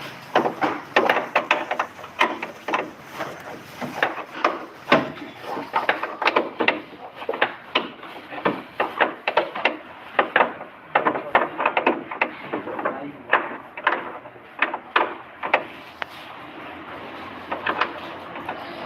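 Irregular knocks, clicks and clatter of hand tools and parts being handled, easing off over the last few seconds.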